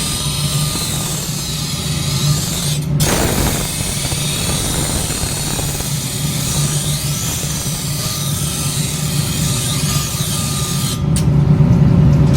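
A power tool running steadily in a metalworking shop, with abrupt breaks in the sound about three seconds in and again near the end.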